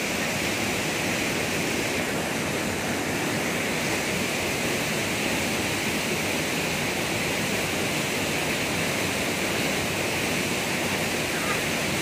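Steady rush of a waterfall, falling water splashing on rock without a break.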